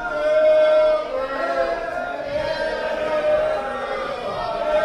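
Chant-like singing in long held notes, several in a row, each lasting about a second.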